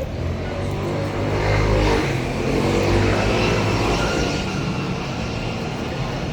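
Motor vehicle driving past on the street, its engine and tyre noise swelling to a peak about two to three seconds in, then slowly fading.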